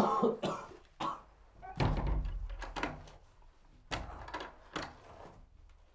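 A heavy cell door thudding shut and being fastened: a run of knocks and thumps, the deepest about two seconds in and another about four seconds in.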